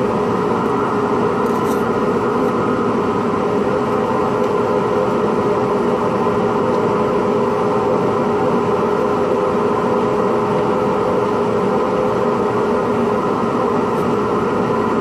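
Workshop dust-extraction vacuum running steadily, a constant drone with a steady hum that does not change.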